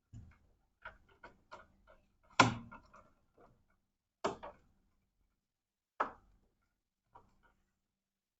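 Scattered, irregular clicks and knocks of hand work, with one louder knock about two and a half seconds in and two sharp clicks later on.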